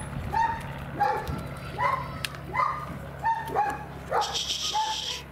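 German Shepherd puppies, about three months old, whining in short repeated yips, roughly one every half second. A brief hiss comes about four seconds in.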